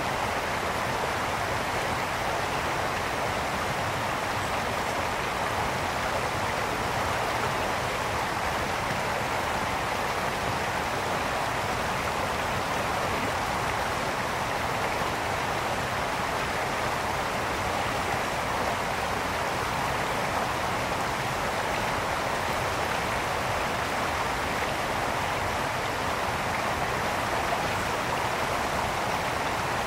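Mountain brook flowing and babbling over stones in a steady, even rush of water.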